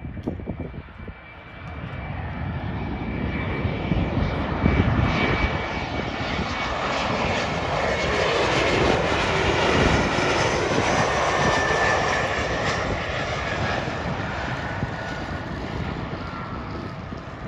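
Jet airliner passing close by: its engine noise builds over a few seconds, is loudest about ten seconds in, and has a whine that drops in pitch as the aircraft goes past, then eases off.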